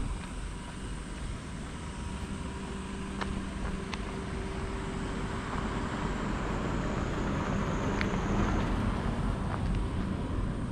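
Outdoor street ambience picked up by a wearable camera while walking: a low rumble of wind on the microphone, a faint steady engine-like hum from an unseen vehicle, and a few scattered clicks.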